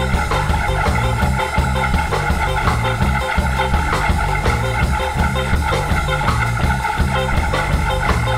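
Live band playing an instrumental reggae groove mixed with the Greek tsifteteli rhythm. An organ sound on the keyboard leads over bass, drums and guitar, with a steady repeating bass line.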